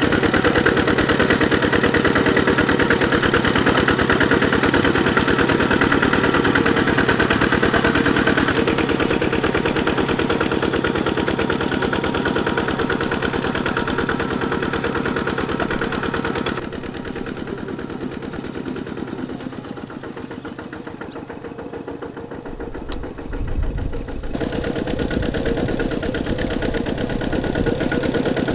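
Single-cylinder diesel engine of a two-wheel walking tractor running steadily with an even chugging pulse while it pulls a plow through mud. The sound drops quieter for several seconds past the middle, then comes back up near the end.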